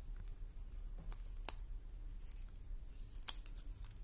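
A falcon tearing at quail meat on a leather glove: scattered small clicks and snips of beak on flesh, with two sharper clicks about a second and a half and three seconds in.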